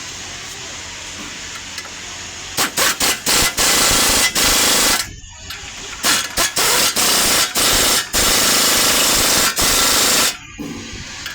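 Impact wrench, most likely taking off the wheel's lug nuts: after about two and a half seconds of workshop background it is triggered in a few short stabs, then runs loud and rattling in long runs of a second or more with short pauses.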